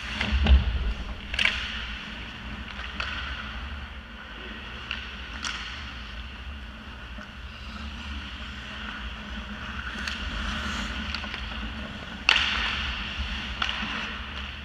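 Ice hockey play from beside the goal: skates scraping and carving on the ice as a steady hiss, with a heavy thump about half a second in and a few sharp cracks of sticks and puck, the loudest a little past twelve seconds.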